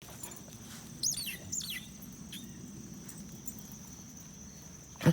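Two quick falling bird-like chirps about a second in, over a steady high insect drone; a sharp knock near the end.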